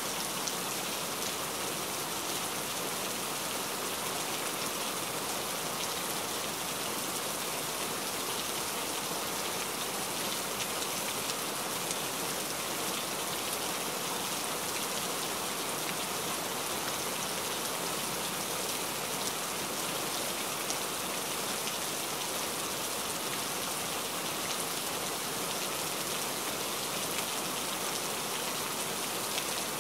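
Heavy rain falling steadily, a dense even hiss of rain on a surface with scattered individual drop ticks.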